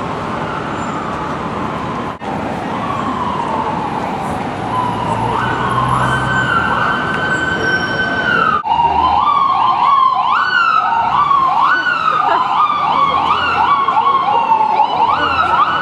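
Emergency vehicle siren sounding over street traffic noise, first as a slow rising and falling wail, then, from about nine seconds in, as a fast repeated rising yelp.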